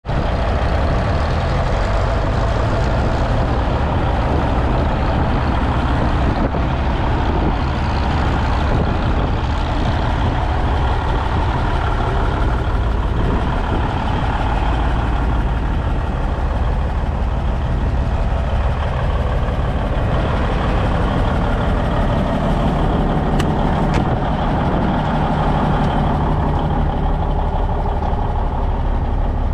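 Freightliner road tractor's diesel engine idling steadily.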